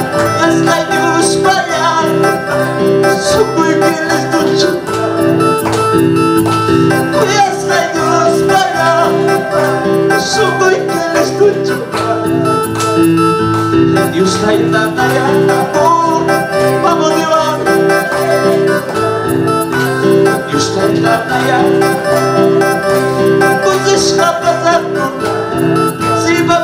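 A man singing a praise song in Quechua into a microphone, accompanied by his own electronic keyboard, all amplified through loudspeakers.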